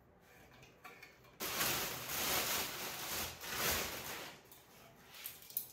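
A clear plastic bag rustling and crinkling as it is pulled off a dumbbell, for about three seconds, then a few light clicks near the end.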